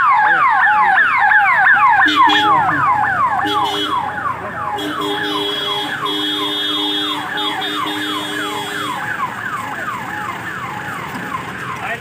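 An electronic vehicle siren wailing in fast repeated sweeps, about four a second, slowly fading. From about two seconds in, a vehicle horn sounds two short blasts and then one long blast held until near the end.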